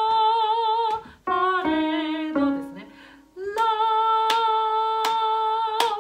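Soprano voice singing fixed-do solfège syllables, mostly long held notes with vibrato and a short falling run in the middle. Sharp hand claps sound about every three-quarters of a second, counting the beats through the long notes.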